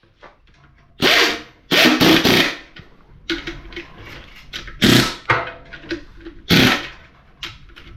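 Bell housing bolts being run in and tightened on an engine: several short, loud bursts of tool noise with quieter pauses between them.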